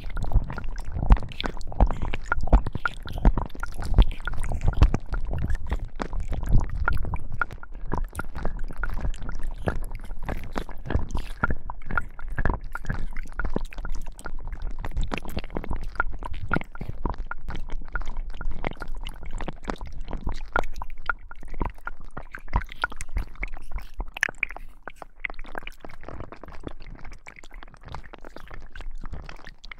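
Slime being squished and kneaded close to the microphones: dense wet squelching and crackling, deeper and heavier for the first seven seconds or so, then lighter and crisper.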